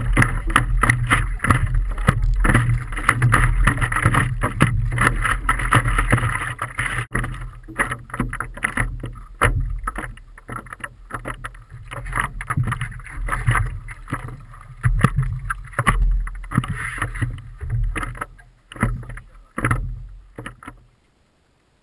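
Water splashing and slapping against a stand-up paddleboard and its paddle as the board is paddled, with wind rumbling on the microphone. Dense at first, it thins into separate splashes in the second half and cuts off just before the end.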